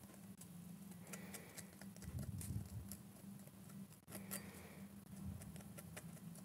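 Faint scattered clicks and light handling noises of small crafting work at a table, with a few soft low thuds about two seconds in, over a steady low hum.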